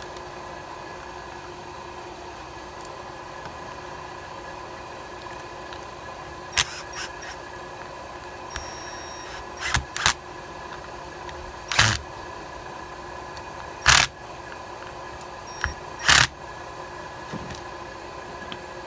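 Handling noise from reassembling the wiring and plastic switch housing in an electric impact wrench's handle: about seven brief knocks and clatters in the second half, over a steady background hum.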